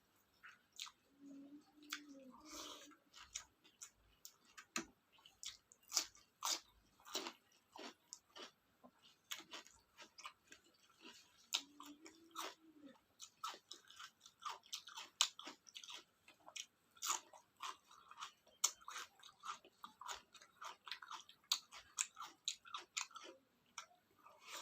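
Close-miked eating of rice with mutton curry: wet chewing, lip smacks and sharp mouth clicks, with some crunching. Twice a short low hum is heard.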